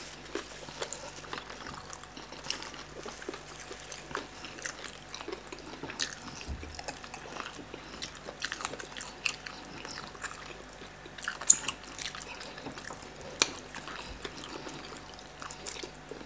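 Close-up eating sounds of chicken being picked off the bone by hand and chewed: wet chewing and mouth smacks with many small scattered clicks and crunches, and one sharper snap about two-thirds of the way through.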